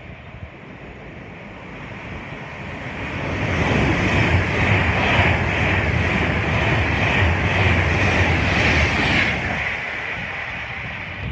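Express passenger train passing through the station at speed: a rushing of wheels on rail and air, with a low hum underneath. It builds over the first few seconds, holds loud, then falls away about nine seconds in.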